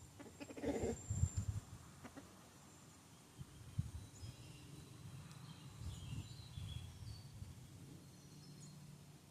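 A chicken clucks softly once, about a second in, among low thumps, with faint high bird chirps later on over quiet outdoor background noise.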